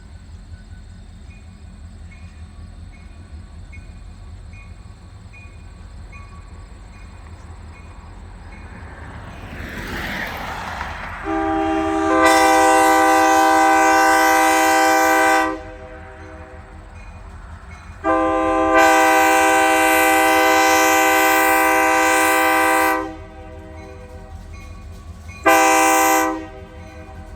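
Diesel locomotive air horn sounding the grade-crossing signal: two long blasts and then a short one, each a chord of several notes, over the low rumble of the approaching train.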